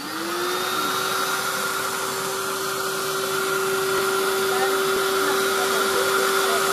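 Small electric air pump switched on and running, inflating a plastic inflatable pool: its motor spins up in the first half second, then holds a steady hum with a rush of air, a bit noisy.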